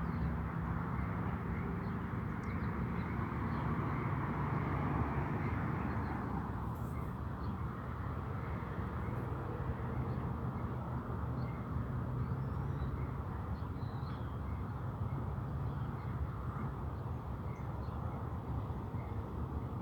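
Freight cars of a potash train rolling past, a steady rumble of steel wheels on the rails that holds even throughout.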